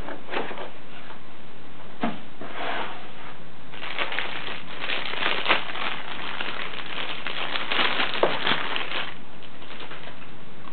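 Clear plastic bag crinkling as a laptop power adapter and cord are pulled out of it, densest over the middle few seconds. Before that come a few light knocks from handling the cardboard box and its packing tray.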